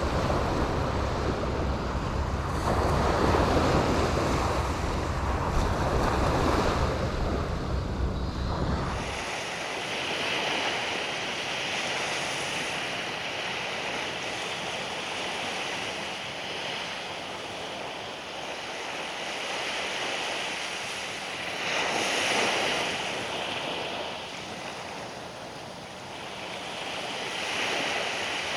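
Surf washing onto a sandy beach, with wind buffeting the microphone as a heavy low rumble that stops abruptly about nine seconds in. After that the wash of the waves carries on, swelling louder now and then.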